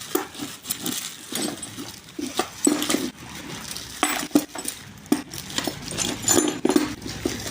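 Metal stabilizer link parts clinking and knocking together as they are handled, a string of irregular clicks and light knocks.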